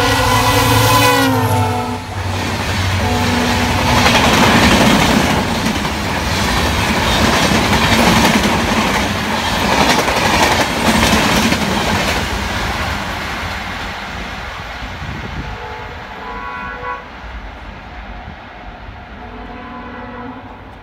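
EMD diesel locomotive's horn blaring as the train passes at speed, its pitch sliding down as it goes by and cutting off about two seconds in. Then the passenger coaches clatter past over the rail joints, the rumble fading as the train moves away.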